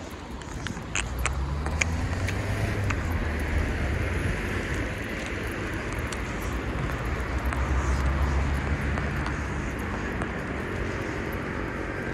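Street traffic: a motor vehicle's engine running close by, its pitch rising about two seconds in, over a steady hiss of traffic. A few sharp clicks sound about a second in.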